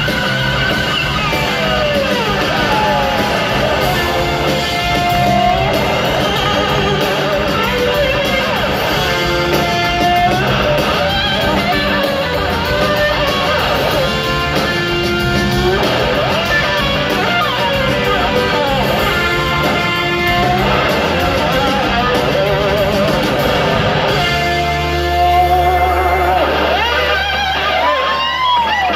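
Live band music heard from the audience, with a guitar lead whose notes slide up and down in pitch. A low bass note is held for a few seconds near the end.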